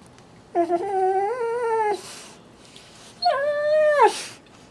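A pet making two drawn-out, wavering Wookiee-like howls, each about a second long and each followed by a short breathy rush of noise.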